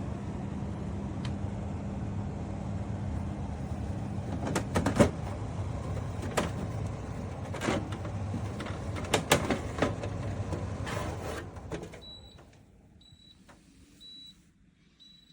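Dehumidifier running with a steady hum, broken by a few sharp knocks. About twelve seconds in the hum dies away, and a short high electronic beep repeats roughly every three-quarters of a second.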